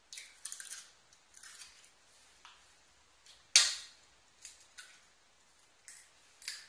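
Eggs being cracked into a mixing bowl: one sharp crack of shell against the bowl about three and a half seconds in, with softer clicks and rustles of shell being pulled apart around it.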